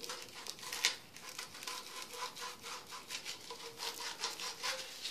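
80-grit sandpaper rubbed back and forth by hand over the cut end of a PVC sink-trap pipe: a steady run of quick, scratchy strokes, several a second. The cut edge is being smoothed so that hair will not catch there and clog the trap.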